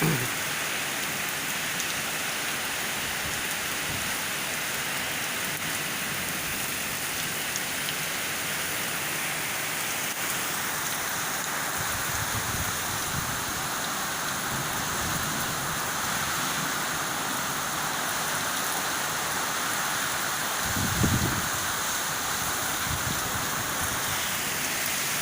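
Heavy rain and strong wind in a thunderstorm, a steady rushing hiss, with a low rumble about halfway through and a louder one near the end.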